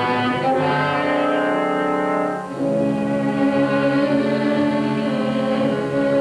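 Cartoon score music: sustained instrumental notes that change chord about two and a half seconds in.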